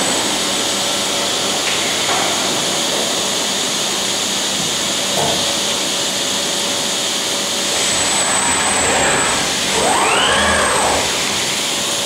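Robotic weld-grinding cell running: a steady, loud rushing machine noise with a faint high whistle, and a motor whine that rises and falls about ten seconds in.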